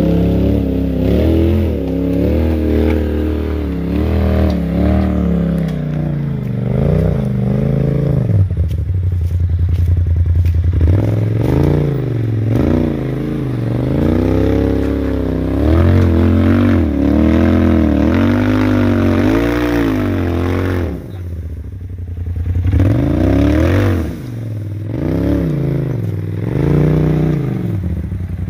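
Polaris RZR side-by-side engine revving in repeated bursts of throttle, its pitch rising and falling over and over as it crawls up rock ledges, with a brief drop near the end before it revs again.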